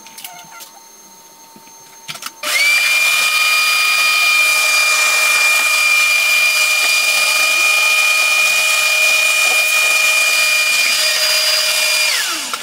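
Shop vacuum switched on about two seconds in, running with a steady whine, then switched off near the end, its pitch dropping as the motor winds down.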